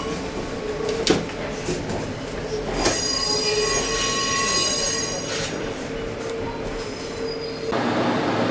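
Moscow metro train heard from inside a car as it rolls slowly over track switches: sharp clicks of the wheels crossing the points, then a high wheel squeal through the middle. Near the end the sound changes suddenly to a steady running noise.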